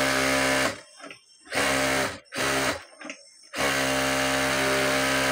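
Singer 9900 industrial sewing machine stitching through fabric at its full speed setting, a steady machine hum. It stops under a second in, makes two short runs, then runs steadily again from about two-thirds of the way through.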